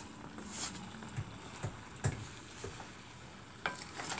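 Wooden spatula stirring and scraping chunks of bottle gourd and red lentils in a pan, with irregular scrapes and light knocks against the pan over a faint sizzle, as the gourd and dal are sautéed together.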